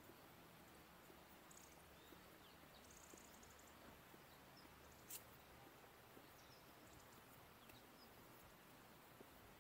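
Near silence: faint outdoor ambience with scattered faint, short high-pitched chirps and a single sharp click about five seconds in.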